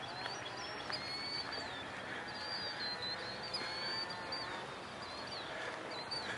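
Small birds chirping and singing, many short high-pitched chirps one after another, over a steady faint outdoor hiss.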